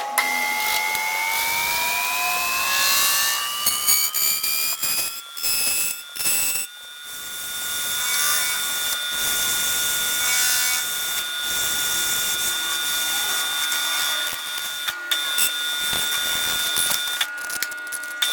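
Machine tool running: a whine that rises in pitch over the first several seconds as the spindle speeds up, then holds steady, over a loud high hiss, with a few brief breaks around the middle.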